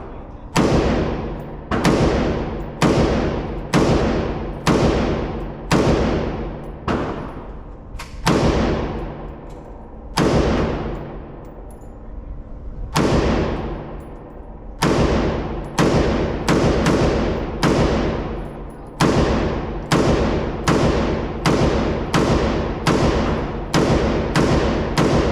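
AR-15 rifle fired shot by shot, about two dozen shots at roughly one a second with a few longer pauses, each ringing on in the echo of an indoor range.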